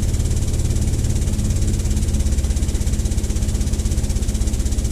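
Caterpillar D4 crawler's diesel engine running steadily with a fast, even firing rhythm, with the machine pulling its own track frame apart.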